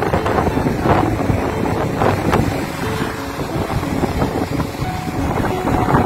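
Wind buffeting the microphone in irregular gusts, over the rush of waves breaking on the beach.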